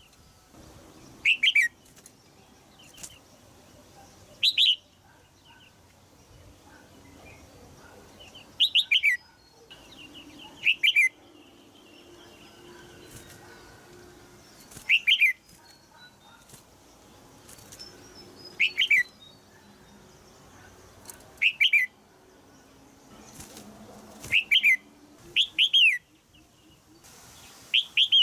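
Female red-whiskered bulbul in a cage giving sharp, chattering 'jiak' calls: about ten short bursts of quick notes, each falling in pitch, spaced a few seconds apart. This is the female call used to stir young males into singing.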